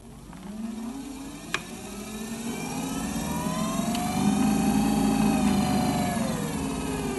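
12 kW electric motor whining as it spins up, its pitch and loudness climbing over the first few seconds, then holding before the pitch falls near the end. A single sharp click about a second and a half in.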